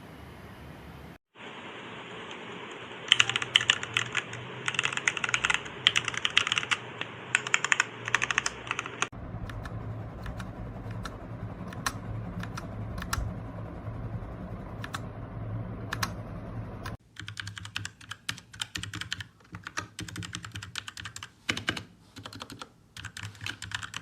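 Typing on a Royal Kludge RK61 mechanical keyboard: quick runs of key clicks, in three separate stretches that cut abruptly about a second, nine seconds and seventeen seconds in.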